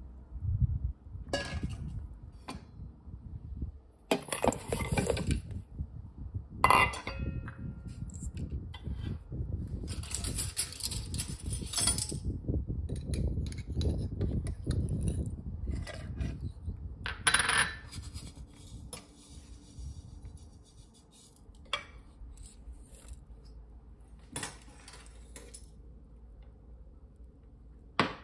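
Irregular clinks and knocks of spoons and small dishes as palm jaggery pieces and cumin seeds are tipped into a food processor's plastic bowl of sesame seeds. The clatter is busiest for the first sixteen seconds or so, then only a few scattered knocks.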